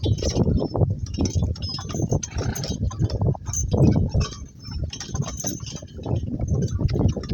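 Two-donkey work cart rolling along, with dense, irregular rattling and knocking and light metallic clinking of harness or cart hardware.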